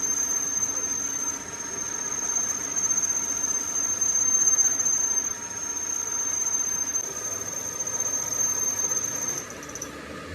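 Metal-cutting machine tool working steel, with a steady high-pitched squeal over the running machine that stops shortly before the end.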